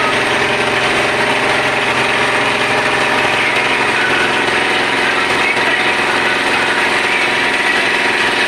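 Motorboat engine running steadily at one unchanging pitch, loud and close.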